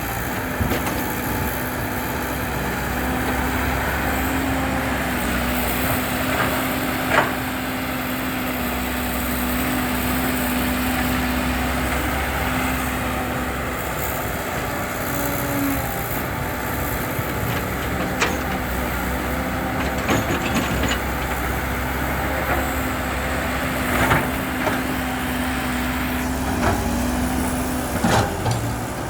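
Diesel engine of heavy earthmoving machinery running steadily with a held hum. A few sharp knocks come through at scattered moments, and the hum drops away near the end.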